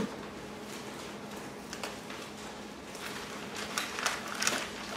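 Bible pages being turned: a few soft paper rustles and flicks, mostly in the second half, over a faint steady room hum.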